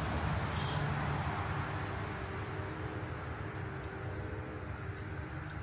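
A motor vehicle's engine and road noise passing and fading away, with a thin steady high tone throughout.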